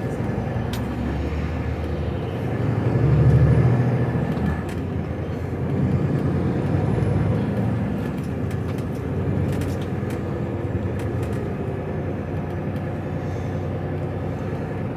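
HGV lorry's diesel engine running while driving, heard from inside the cab, with a louder low rumble swelling about three seconds in.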